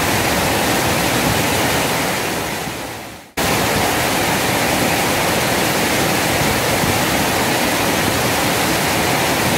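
Rushing water from a small weir waterfall and the fast river current below it, a steady loud rush of noise. About two seconds in it fades down and cuts out for a moment, then comes back abruptly and runs on steadily.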